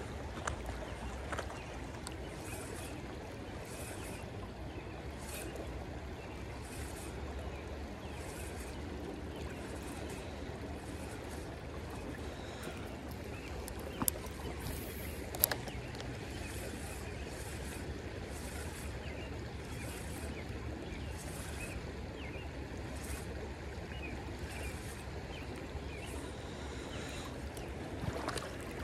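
Steady rush of a shallow creek flowing over stones, with a soft high swish about every second. Two sharp clicks about a second and a half apart come about halfway through.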